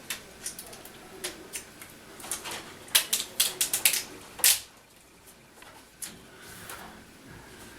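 Light, irregular clicks and taps of hands working on a laptop's plastic screen lid, prying up tape and unplugging the display cable, with a quick run of clicks about halfway through and one louder click just after.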